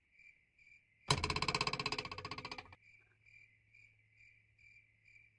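Crickets chirping steadily, about two chirps a second. About a second in, a louder rapid buzzing trill lasts about a second and a half.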